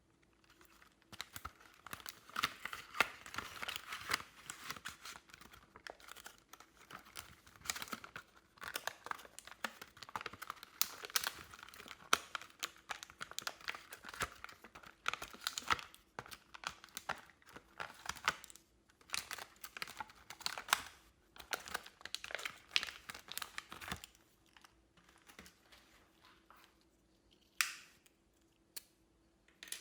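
Glossy slime being pressed and stretched by hand, giving a dense run of sticky crackling and popping clicks that thins out to scattered pops after about 24 seconds.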